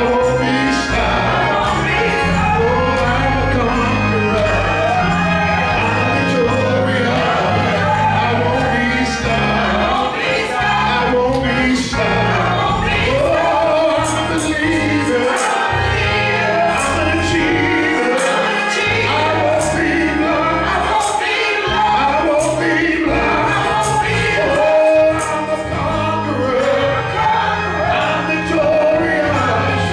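Gospel singing: a male lead voice sings into a microphone while a group of backing singers joins in, over instrumental accompaniment with sharp percussion hits in the second half.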